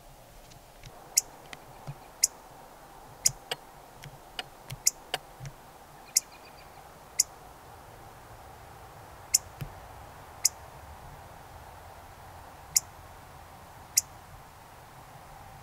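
A chipmunk giving sharp, high-pitched single chip calls, about a dozen at irregular intervals, some in quick succession in the first few seconds and more spaced out later. The repeated chipping is the call of an agitated chipmunk.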